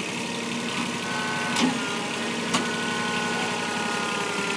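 Backhoe engine running steadily, with two sharp clanks about a second apart.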